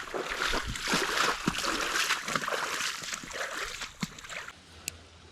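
Water splashing and rushing close by, with many short splashy strokes, falling away abruptly about four and a half seconds in.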